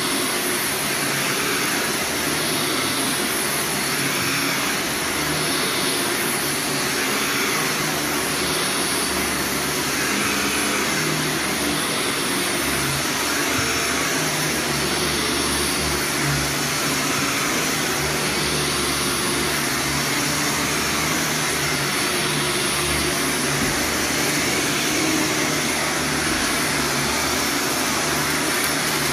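Upright vacuum cleaner running over carpet, a steady whine whose sound swells and eases about every two seconds.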